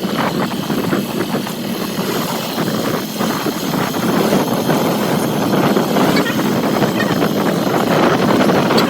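A motor engine running steadily, a rough drone without breaks.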